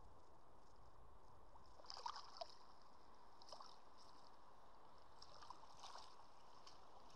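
Faint splashes and sloshing of water as a hooked brown trout is scooped into a landing net, over a steady hiss of the river. The clearest splashes come about two seconds in, with a few softer ones later.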